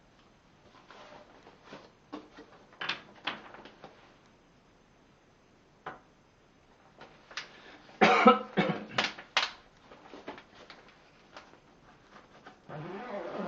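Small items being packed back into a soft travel bag: rustling, scraping and knocks of things being handled and pushed in, with a loud flurry of knocks and scrapes about eight seconds in.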